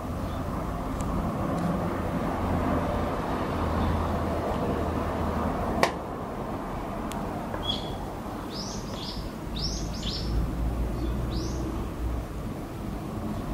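An unidentified bird giving a quick series of short, high calls that sweep upward in pitch, starting about eight seconds in. A steady low rumble runs underneath.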